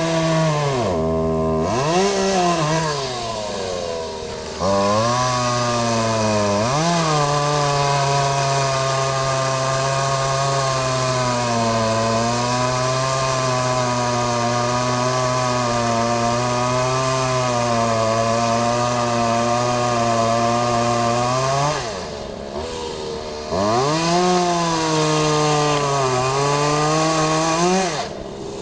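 Chainsaw engine revved up and down a few times, then held at a steady high speed for about fifteen seconds. It drops back briefly, revs up and down again, and falls off near the end.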